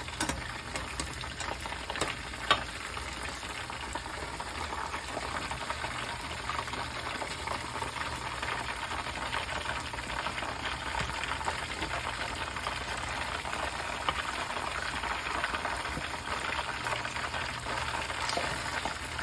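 Battered chicken wings deep-frying in hot oil, a steady crackling sizzle. A few sharp clicks come in the first few seconds.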